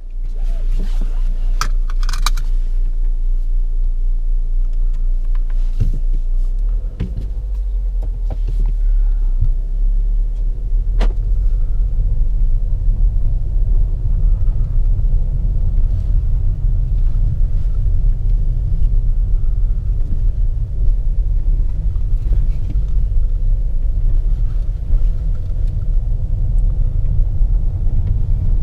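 Volvo XC40 T5, a 2.0-litre turbocharged petrol four-cylinder with all-wheel drive, being driven: a steady low rumble of engine and road noise. From about seven seconds in the rumble turns rougher and more uneven, with a few scattered clicks and knocks.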